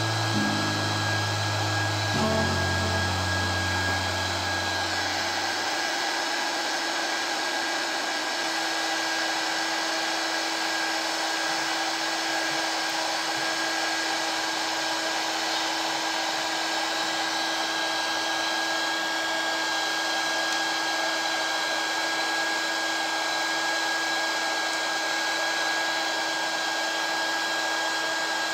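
A 300 W hot air gun blowing steadily: a fan whir and rush of air with a constant whine, as it heats a circuit board to melt the solder under surface-mount components.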